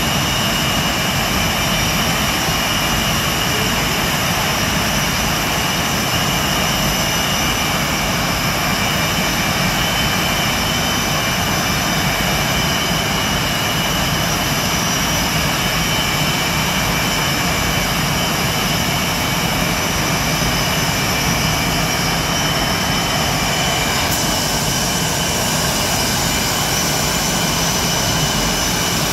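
Blue Angels F/A-18 Hornet jet engines running on the ramp: a loud, steady roar with a high whine. The whine changes a few seconds before the end.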